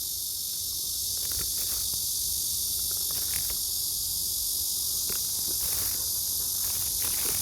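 Cicadas singing in a steady, high-pitched chorus that holds without a break, with a few faint handling clicks close by.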